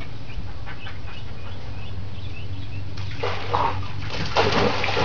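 Outdoor ambience: a steady low hum with small birds chirping faintly. About three seconds in, a louder, rougher noise comes in over it.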